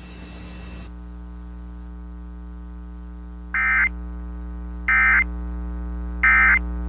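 Steady electrical hum with a light hiss that stops about a second in. Then three short bursts of Emergency Alert System data tones, each about a third of a second and about 1.4 s apart: the End Of Message code that closes the alert.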